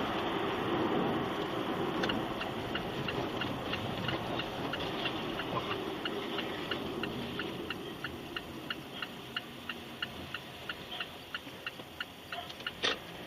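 Car's indicator relay clicking about three times a second inside the cabin, over steady engine and road noise that slowly dies down. A louder click comes near the end.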